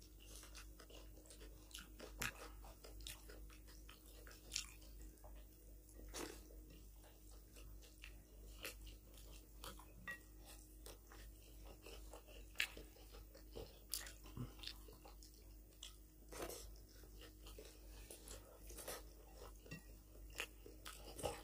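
Two people eating rice and mutton curry by hand: faint chewing and wet mouth sounds, fingers mixing rice on the plates, and scattered sharper crunches and clicks, over a faint steady hum.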